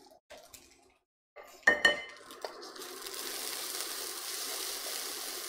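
A utensil strikes the wok once with a short ringing clang, then the egg fried rice in the hot wok sizzles steadily as it is stirred.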